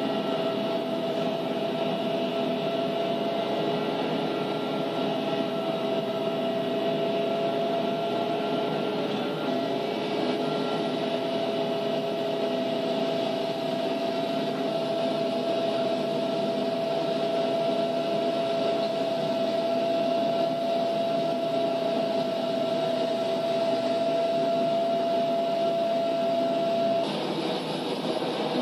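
Helicopter in flight heard from inside the cabin: a steady drone of engine and rotors with a constant high whine running through it. The whine stops and the sound changes abruptly near the end.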